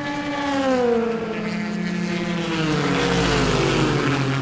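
Cadillac V-Series.R GTP race car's 5.5-litre V8 running, its note falling steadily in pitch as it passes, then settling into a lower, rougher drone near the end.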